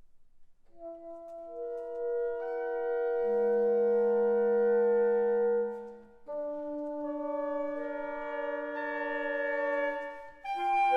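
Reed quintet of oboe, clarinet, saxophone, bass clarinet and bassoon playing long held chords, the instruments entering one after another to build each chord. The first chord breaks off about six seconds in and a new one starts at once, and a louder chord comes in near the end.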